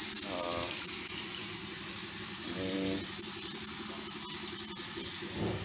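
Tap water running steadily from a gooseneck faucet into a stainless steel kitchen sink, a continuous splashing hiss.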